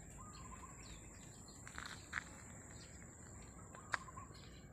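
Quiet rural ambience: a steady high-pitched insect drone, with a few short bird chirps about two and four seconds in.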